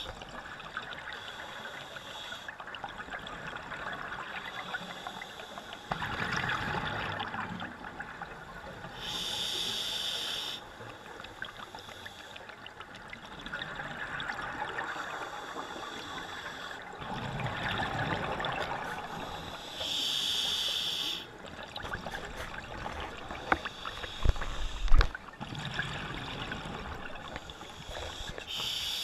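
A diver's scuba regulator breathing, heard underwater through the camera housing: a short hissing inhale about every ten seconds, with longer gurgling swells of exhaled bubbles between them. One sharp low thump late on.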